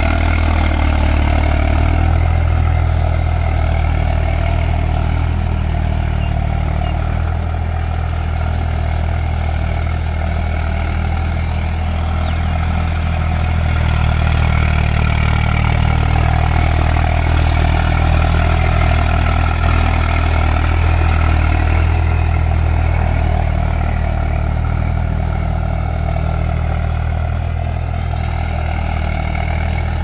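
Eicher diesel tractor engine running steadily as the tractor ploughs through wet mud, with only slight rises and falls in level.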